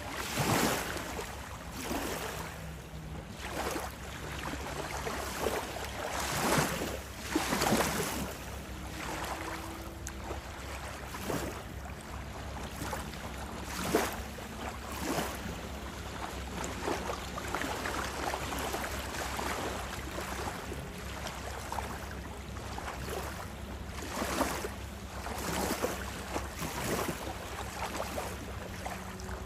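Small lake waves lapping and splashing against the shore in uneven washes every second or two, over a low steady rumble of wind.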